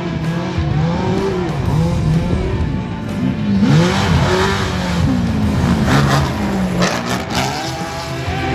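Off-road race truck's engine revving up and down as it races along a dirt track. A louder rush of noise comes as it passes close, from about three and a half seconds in.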